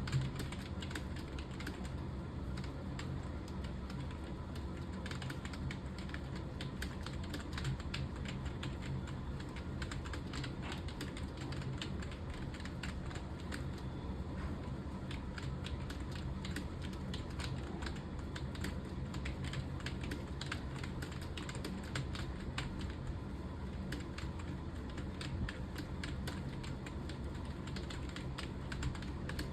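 Continuous fast typing on a computer keyboard: a quick, irregular run of key clicks, over a steady low hum.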